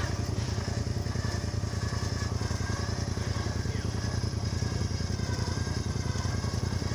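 Small off-road vehicle engine idling steadily with an even low pulse.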